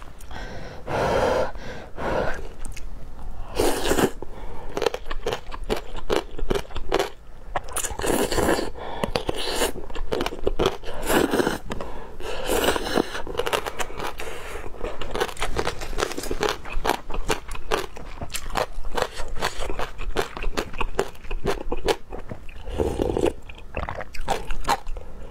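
Close-up eating sounds of a person eating rice noodles in soup: several loud slurps of noodles, with chewing and crunching in between.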